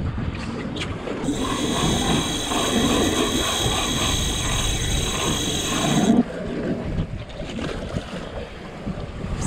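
A steady mechanical whir with a high whine, lasting about five seconds and cutting off suddenly, over low boat and wind noise.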